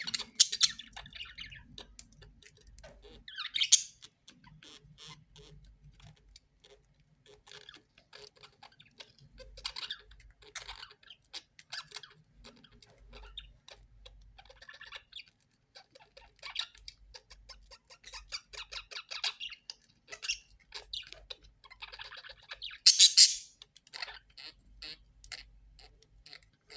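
Parrots chattering with many short, high chirps, and two louder squawks, one about four seconds in and one about twenty-three seconds in.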